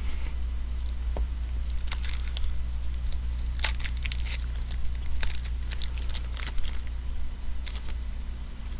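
Baseball card pack wrappers crinkling and tearing, with scattered crisp crackles as the packs are opened and the cards handled.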